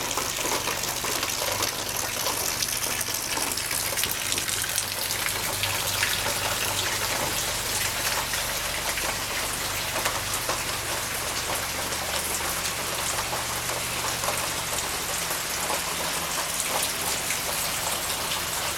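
Steady rain falling, with dense patter of drops striking surfaces.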